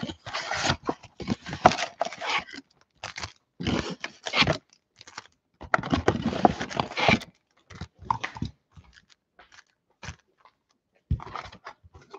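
A 2020 Panini Select football hobby box being torn open by hand: cardboard ripping and flaps scraping in irregular bursts with short pauses, then foil card packs crinkling as they are pulled out near the end.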